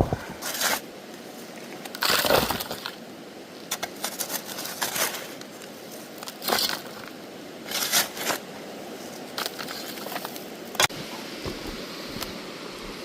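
River gravel being worked for gold panning, crunching and scraping in irregular bursts with sharp clicks of stones knocking together.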